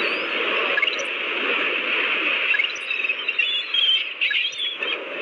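Steady rushing water ambience with scattered short bird chirps.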